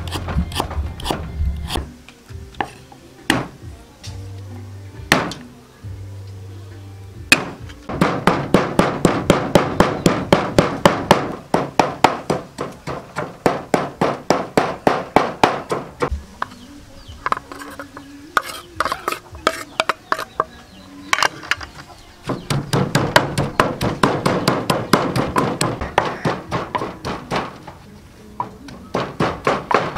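A knife strikes a wooden chopping block a few times, chopping galangal. Then a wooden pestle pounds in a wooden mortar in fast, even strokes, about four a second, stopping for a few seconds midway.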